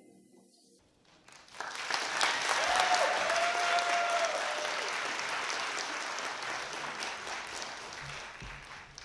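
Audience applauding, starting about a second in after near silence and holding steady, with one long call from someone in the crowd rising out of it a few seconds in. The applause cuts off abruptly at the end.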